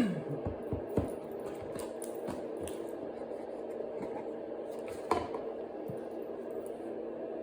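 Jewellery packaging being handled and opened: a few sharp clicks or taps, the loudest right at the start, another about a second in and one about five seconds in, with soft rustling between them over a steady low room hum.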